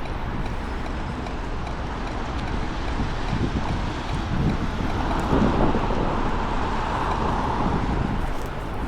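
Wind rumbling on a small action camera's microphone, mixed with road traffic; the traffic noise grows louder about halfway through, like a vehicle going by.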